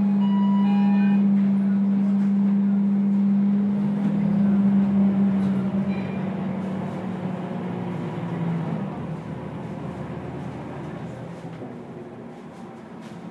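Scania K230UB city bus heard from inside the cabin as it moves off from a stop: the diesel driveline's steady drone swells and shifts in pitch as the bus accelerates, then eases and quietens as it settles into cruising. A few short electronic beeps sound in the first second.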